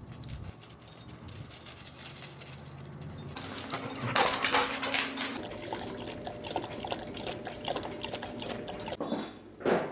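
A dog making a dense run of quick clicking sounds, loudest about four seconds in and lighter afterwards, then one short, sharp sound near the end.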